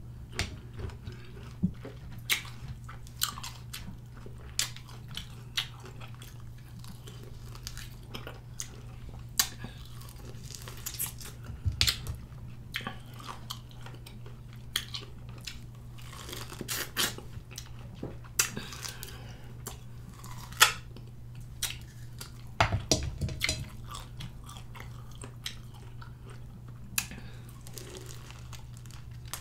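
Close-up mouth sounds of biting into and chewing lemon and lime wedges: irregular wet clicks and smacks, a few louder, over a faint low steady hum.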